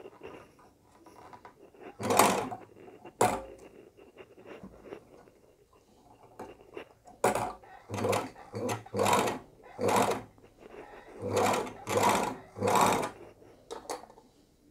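Industrial overlock sewing machine run in about ten short bursts, each well under a second, as it is test-stitched after the needle-bar height was adjusted. It skips a stitch once and then sews properly.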